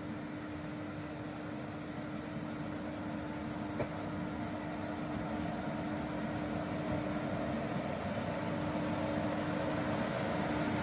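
Battery-powered shunting locomotive moving slowly past at close range, with a steady electric hum over a low rumble that grows louder as it comes nearer. There is a single click about four seconds in.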